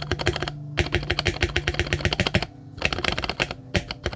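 Fast typing on a mechanical keyboard with Gateron Yellow linear switches, a rapid run of key clacks with two brief pauses, one near the start and one a little past the middle.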